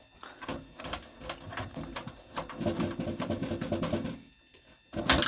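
Screws being turned out of a desktop PC case's side panel: scattered metal clicks, a grinding run of turning for about a second and a half, then one sharp click near the end.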